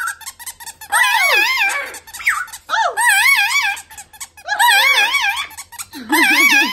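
Rubber squeaky toy squeezed again and again, giving about four warbling squeaks a second or so apart, each with a fast wavering pitch. Short downward swoops come between the squeaks.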